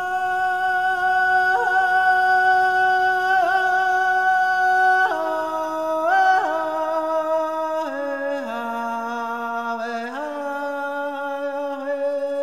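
A singing voice holding long notes, each held a second or more before moving to the next, the line stepping lower through the middle and rising a little near the end.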